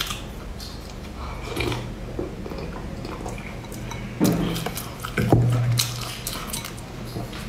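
Close-up eating sounds: a spoon clinking and scraping in a ceramic bowl, with wet mouth and slurping sounds. Two louder wet sounds come about four and five seconds in.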